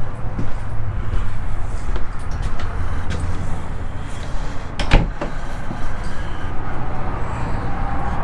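Rumbling handling noise from a camera carried against a shirt, fabric rubbing on the microphone, with one sharp knock just before five seconds in.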